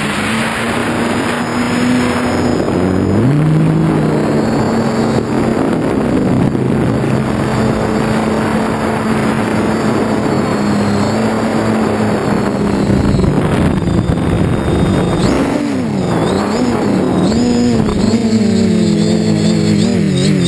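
Quadcopter's electric motors and propellers heard close up from its onboard camera: a loud, steady buzzing hum over a rush of propeller wash. The pitch steps up about three seconds in, and near the end it wavers up and down repeatedly as the motor speeds change.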